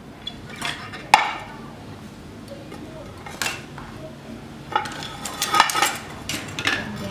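White ceramic plates and a bowl clinking and knocking against each other and the work surface while food is moved between them: a string of sharp clinks with brief ringing, the loudest about a second in and a busier cluster in the second half.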